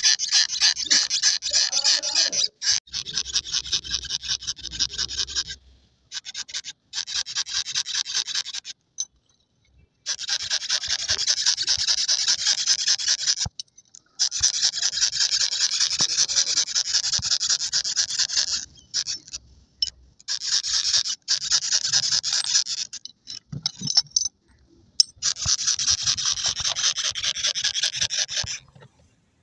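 Plastic trigger spray bottle pumped rapidly, spraying diesel: a fast train of short hissing squirts in runs of a few seconds, with brief pauses between runs.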